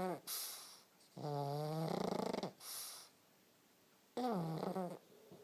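A pug snoring: a pitched, wheezy snore about every three seconds, each one starting a little higher and settling lower, with a short hissing breath between snores.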